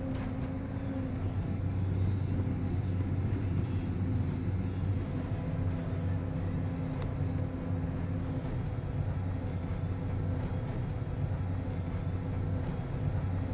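Self-propelled silage chopper (forage harvester) running steadily, heard from inside its cab: an even diesel engine drone with a constant low hum.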